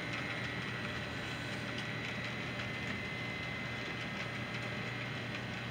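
Model GE B30-7 diesel locomotive running along a layout's track toward the viewer: a steady mechanical hum with a faint high whine and light clicking.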